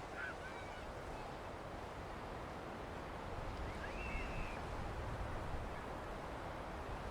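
Steady beach ambience of sea and wind noise, with a low rumble that swells slightly past the middle. Two short bird calls, one just after the start and a longer, slightly rising one about four seconds in.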